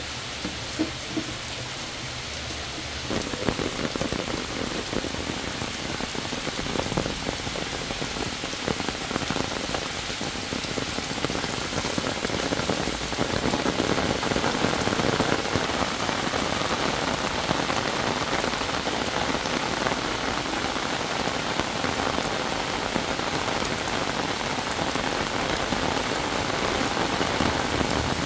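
Heavy monsoon rain falling steadily on leaves and wet, puddled ground, a dense even hiss of drops that grows heavier about three seconds in.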